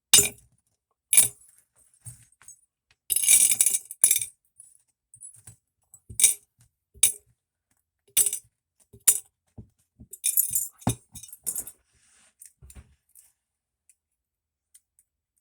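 Small metal knife parts and pins clinking and tapping as a folding knife is assembled by hand. About a dozen separate sharp clicks, with a few longer jangling rattles, stopping about 13 seconds in.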